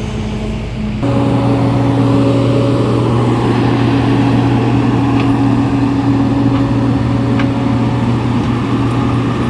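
Road milling machine's diesel engine running steadily, stepping up suddenly to a louder, higher-pitched run about a second in as the machine is driven up the stone loading ramp.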